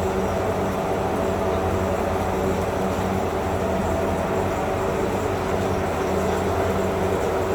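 Steady mechanical hum from a running motor or engine, holding one pitch with several fixed tones and no change in level.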